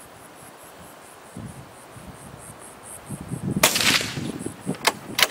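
Insects chirping in a steady, evenly pulsing high rhythm. About three and a half seconds in comes a loud, brief rushing noise, then a couple of sharp clicks near the end.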